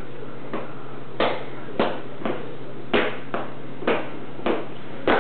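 Oversized adult shoes clomping on a ceramic tile floor as a toddler walks in them: about nine heavy steps, one every half second or so.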